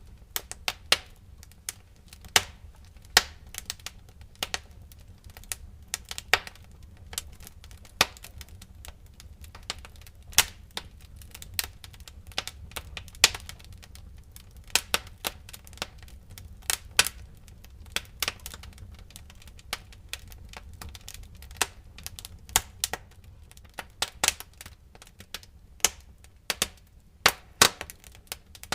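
Wood fire in a fireplace crackling: sharp, irregular pops and snaps, several loud ones, over a low steady rumble of burning.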